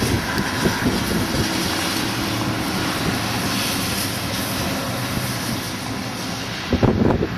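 Steady outdoor rushing noise with a faint low drone, then gusts of wind buffeting the microphone from about seven seconds in.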